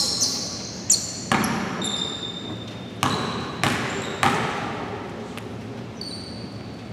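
A basketball bounced several times on a hardwood gym floor in the first four seconds or so, each bounce echoing through the hall, as a free-throw shooter dribbles at the line before the shot.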